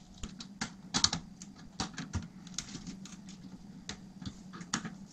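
Irregular small clicks and taps of a screwdriver, screws and a chrome wire fan grill being handled as the grill is unscrewed from an 80 mm plastic case fan, the sharpest clicks about a second in.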